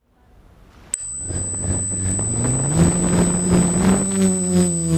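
Quadcopter's brushless motors (Suppo 2212/13T) spinning up for takeoff, their whine rising in pitch and then holding steady at hover. A click about a second in is followed by a steady high-pitched whine.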